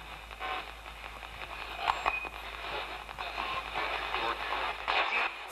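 P-SB7 spirit box sweeping through radio stations: a steady static hiss broken by short chopped fragments of broadcast sound, with a brief louder blip about two seconds in.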